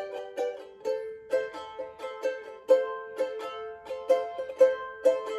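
Tahitian ukulele strummed in a steady rhythm, about two strokes a second, with a chord change about a second in; no singing.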